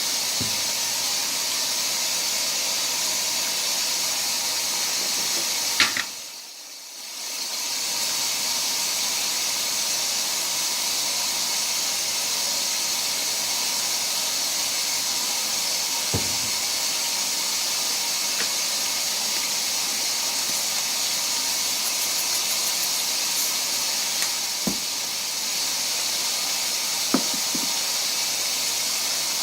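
Washing machine filling with water: a steady hiss that drops away for about two seconds near six seconds in, with a few faint clicks.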